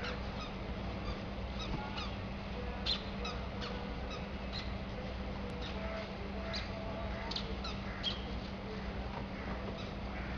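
Street ambience: a steady low hum under many short, high bird chirps, with a faint wavering tone about six seconds in.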